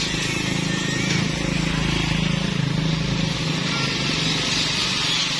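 Isuzu Elf dump truck's diesel engine running steadily while its hydraulic hoist lowers the tipped bed, with a steady hiss over the engine note.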